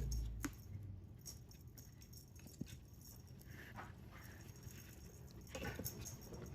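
Cats eating from their dishes: faint scattered clicks and small taps.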